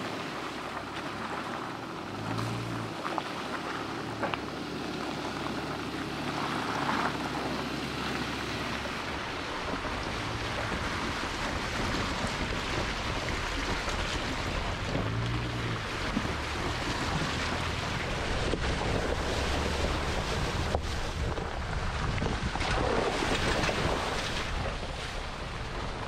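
Jeep Wranglers driving slowly along a wet, muddy trail: engine rumble and tyres splashing through puddles and standing water, with wind noise on the microphone.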